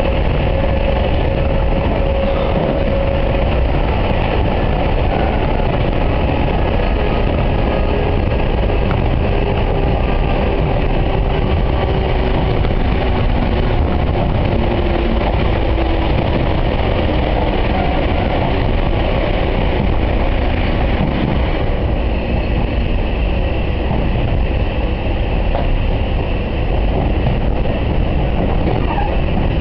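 On-board running noise of a former Seibu 701 series electric train: wheels rumbling on the rails and a faint motor whine that drifts slowly in pitch. The motored cab car is the one carrying the microphone, at the rear of the train.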